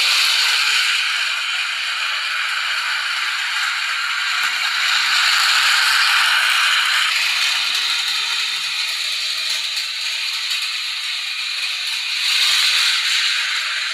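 Small toy train running on a plastic track, its little electric motor whirring and its wheels rattling steadily, swelling slightly twice.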